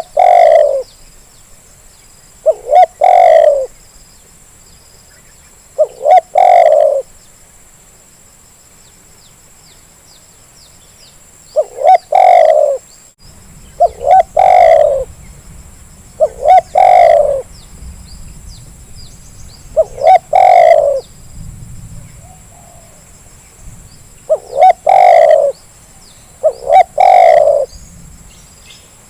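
Spotted dove (terkukur) cooing: a repeated phrase of a short note followed by a longer coo, about every two to four seconds. It is a lure call meant to get a reluctant bird calling.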